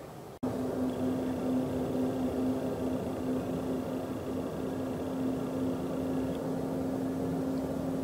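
Antonov An-124's four D-18T turbofans at takeoff power on the takeoff roll: a loud, steady jet roar with a strong low hum and a high whine. It cuts in abruptly after a brief dropout about half a second in.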